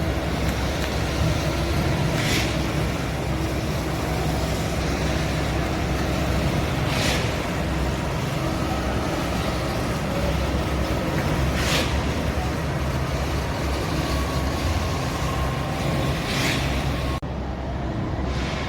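Steady low rumble of road vehicles, with a brief hissing swell about every five seconds. Near the end the sound changes abruptly and loses its top.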